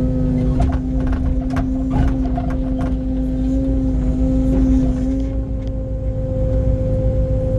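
Excavator engine and hydraulics running steadily, with a constant whine over a low rumble, and several sharp clanks and knocks in the first few seconds as the bucket works broken concrete.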